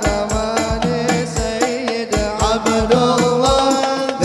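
Male voice singing a sholawat into a microphone over a hadroh ensemble: frame drums and a deep bass drum keep a steady beat of about two strokes a second.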